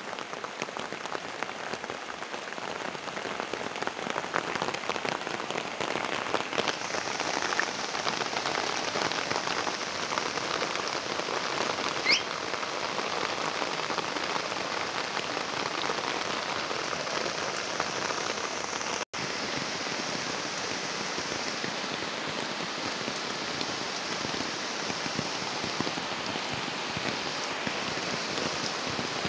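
Steady rain falling on garden foliage, pond water and paving, growing heavier about six seconds in. The sound cuts out for an instant about two-thirds of the way through.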